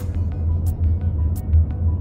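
Background music with a deep bass and a steady beat, a sharp high hit about every two-thirds of a second.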